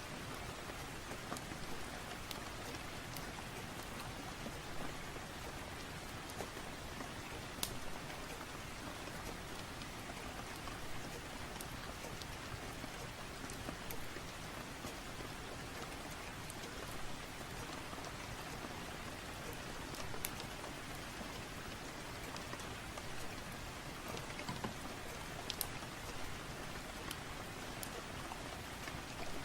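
Steady rain, an even hiss with scattered sharp ticks of drops or crackles here and there.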